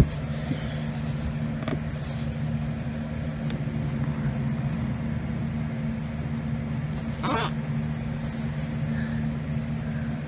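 A steady low hum, with one short burst of hissing noise about seven seconds in.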